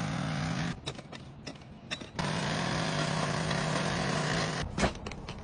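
Small gasoline engine of a walk-behind trencher running steadily while cutting through turf. It drops away for about a second and a half near the start, with a few sharp clicks, then runs again and breaks off with more clicks shortly before the end.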